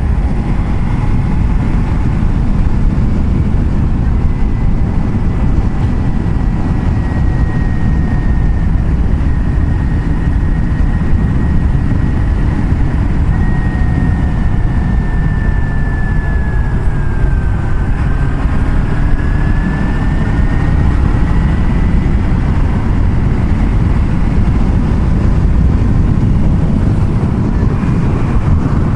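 Heavy wind rumble on the microphone while riding a motorcycle at road speed, with the engine's faint steady whine underneath. About two-thirds of the way through, the engine whine sags in pitch and then climbs back up.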